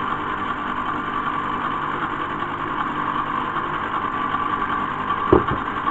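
Electric ice cream maker's motor running steadily, turning the paddle in the freezer bowl as it churns the mix, with a steady hum. There is a short knock about five seconds in.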